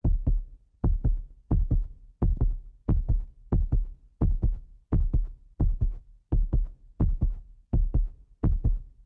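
Heartbeat sound effect: a steady double thump, lub-dub, repeating a little faster than once a second, heavy and low.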